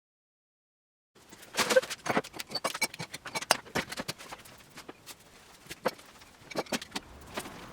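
A second of dead silence, then irregular sharp clicks and taps of small hard objects being handled.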